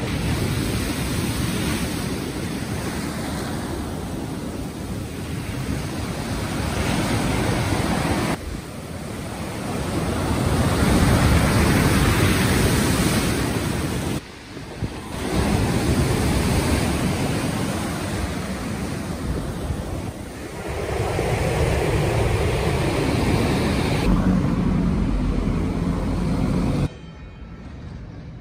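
Sea surf breaking and washing onto a pebble beach, mixed with wind buffeting the microphone. The rush of the waves swells and ebbs several times, changing abruptly at the cuts between shots, and drops to a quieter background near the end.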